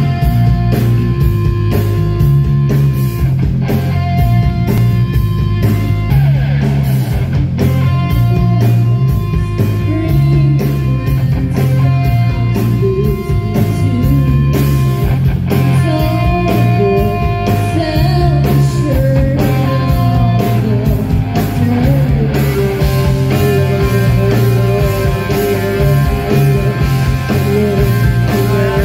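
Live rock band playing loud through a PA: electric guitar, bass and a steady drum beat, with a woman singing lead.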